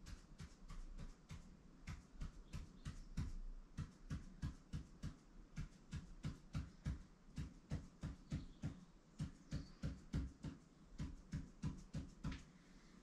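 Ink pen tapping and scratching out short tally strokes on paper in a quick, steady rhythm, about four strokes a second.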